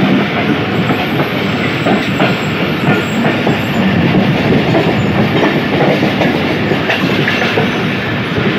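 Pakistan Railways passenger train running along the track: steady wheel-on-rail rumble with a clickety-clack over the rail joints.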